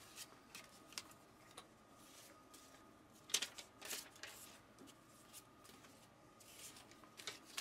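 Faint rustling and handling of paper inserts and packaging, with scattered light taps and a brief louder rustle about three and a half seconds in.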